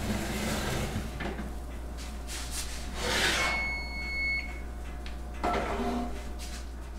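Cast iron Dutch oven scraping along a metal oven rack as it is pulled out, then set down on the gas stove's grates, in several scrapes and knocks. A thin high tone sounds for about a second around the middle.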